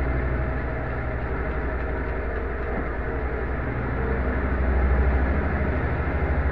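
Little Swan top-loading pulsator washing machine on its spin cycle, the drum spinning with a steady low rumble that swells and eases. No loud knocking of the tub.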